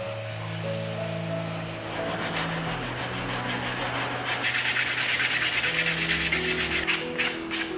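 Small knife whittling a wooden disc by hand: rapid, rhythmic scraping strokes of the blade shaving the wood, starting about two seconds in and becoming sharper and more separate near the end.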